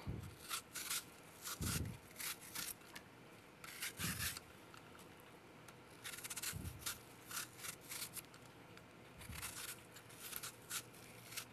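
Vegetable peeler scraping the skin off a green apple in short, faint strokes at an uneven pace, with a few soft low thumps in between.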